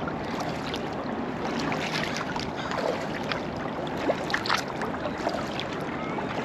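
Sea kayak being paddled on open water: a steady wash of moving water with faint paddle splashes and drips.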